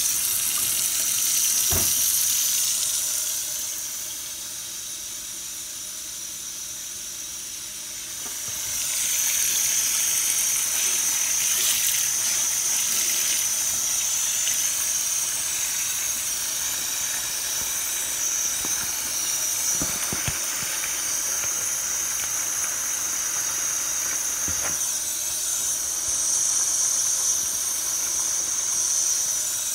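Kitchen tap running into a sink that is filling with soapy dishwater, a steady hiss. About four seconds in it turns quieter for a few seconds before coming back, with an occasional light knock of dishes.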